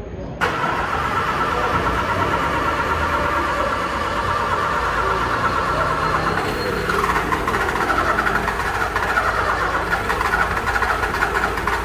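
A car's starting system being worked on a no-start, making a continuous rapid clicking chatter (the 'tec tec') while the engine fails to catch, the sign of a fault in the starting system. It starts abruptly about half a second in and changes tone around seven seconds in.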